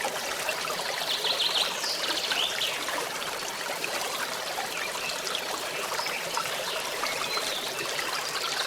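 Forest stream trickling steadily. A bird chirps in quick high series about a second in, again around two and a half seconds, and near the end.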